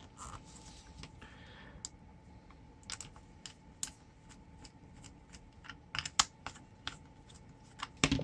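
Irregular small clicks and taps of hands and tools working on a power cord's plug as it is taken apart, growing busier about six seconds in.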